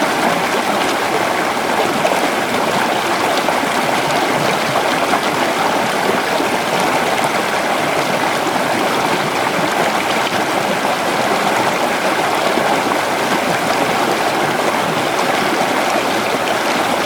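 River water flowing steadily over rocks, an even rushing and babbling.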